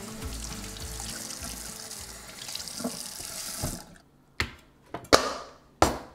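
Kitchen faucet running into a stainless steel sink as skinned bullfrog legs are rinsed under the stream, a steady splashing hiss that stops about four seconds in. Three sharp knocks follow.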